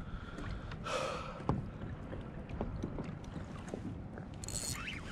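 Water sloshing against a plastic fishing kayak's hull, with scattered small knocks and ticks from the boat and the fishing gear, and a short hard breath from the angler about a second in.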